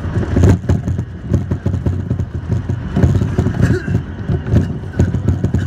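Beijing Subway Changping Line train running at speed, heard inside the carriage: a steady low rumble with uneven knocking and clatter from the running gear.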